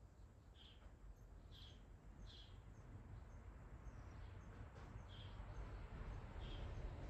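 A small bird chirping faintly in short, high calls, about once a second with a pause in the middle, over a low background rumble.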